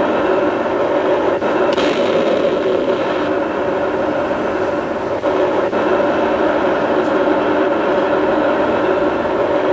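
A 1/16-scale M60 tank model's sound-effects unit plays a steady tank engine running sound through its small onboard speaker. A brief hiss comes about two seconds in, and there are a few faint clicks.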